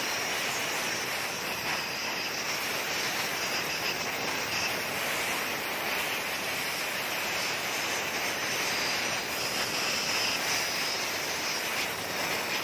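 Compressed-air blow gun hissing steadily as it blasts through an Isuzu 4JA1 oil pump housing, blowing out old oil to clean it.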